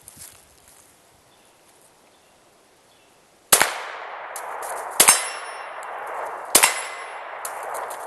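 Glock 20SF pistol firing .38 Super rounds: three sharp shots about a second and a half apart, each followed by a long ringing decay.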